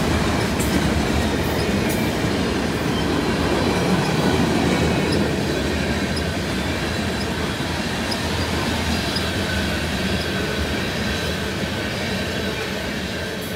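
Freight train of tank cars rolling past, steel wheels running on the rails in a steady rumble. It fades slowly as the end of the train moves away.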